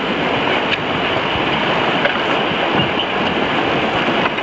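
Steady rushing of wind and water as a sailing yacht moves fast through choppy water, with wind buffeting the microphone.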